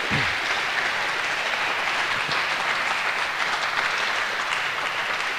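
Audience applauding, a dense patter of many hands clapping that slowly fades.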